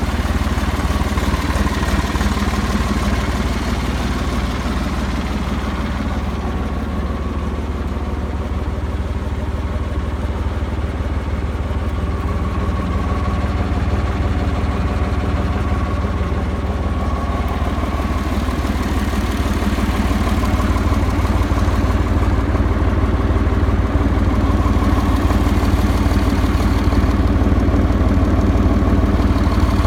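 John Deere 350 crawler bulldozer's engine running steadily at idle, with no change in speed.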